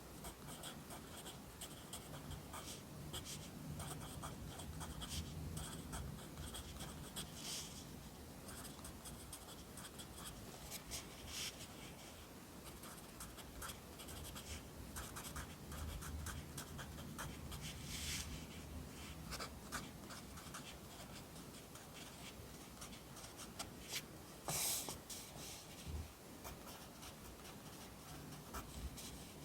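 Pencil writing Korean characters on paper: a steady run of short scratching strokes, with one louder stroke late on.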